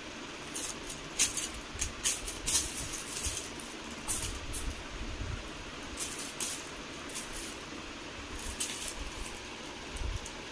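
Thin clear plastic bag crinkling in short, irregular crackles as a kitten paws at it, louder in the first half, over a steady background hiss.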